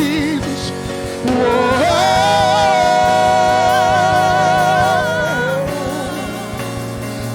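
Gospel worship singing: a voice slides up about a second in and holds one long note for about four seconds, then eases down, over a steady sustained accompaniment.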